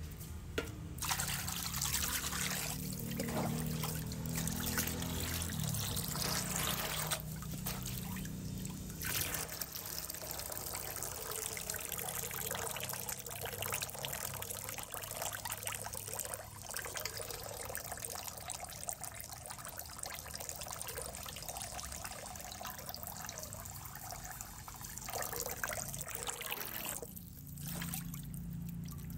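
Steady trickle of water in an aquarium, with a low hum in the first few seconds and again near the end.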